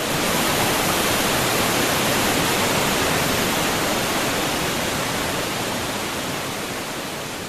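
Roar of the Iguazu waterfalls: a dense, steady rush of falling water, swelling in at the start and easing slowly down.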